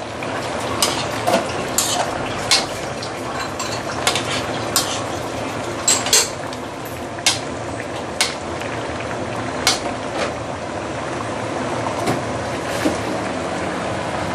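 Metal spoon stirring a stew in a stainless steel pan, with a dozen or so sharp clinks of the spoon against the pan at uneven intervals. Underneath runs a steady hiss from the simmering sauce.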